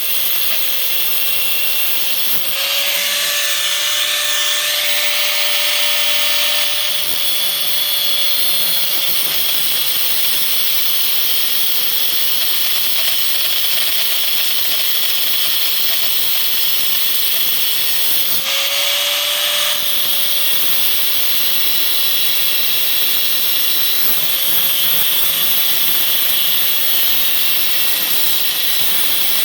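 Power grinder cutting, a continuous loud hiss over a steady motor tone that rises briefly in pitch a few times.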